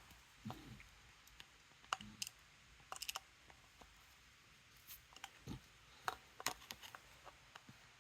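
Faint, irregular clicks and light taps of small carburetor parts and hand tools being handled on a workbench, a few sharper ticks clustered around three seconds in and again after six seconds.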